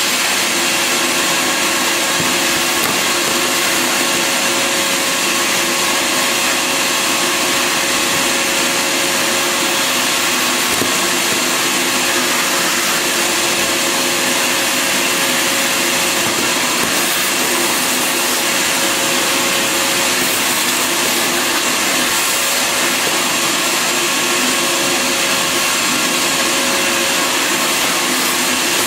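Bissell Garage Pro wall-mounted wet/dry shop vacuum running steadily through its hose at full suction, a loud, even motor whine.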